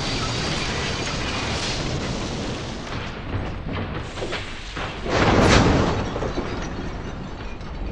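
Train-crash sound effect: a dense rumbling crash with a few sharp knocks, then a loud boom about five seconds in as crates burst out of a wagon, fading afterwards.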